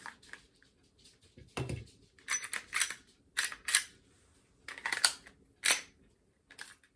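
A string of sharp mechanical clicks and clacks from a Ruger Security-9 pistol being handled and its action worked, as when checking that it is unloaded.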